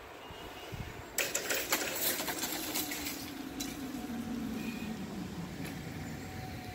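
Level-crossing barrier drive running as the red-and-white booms lower: a rattle starts about a second in, then settles into a steady motor whine that sinks slowly in pitch.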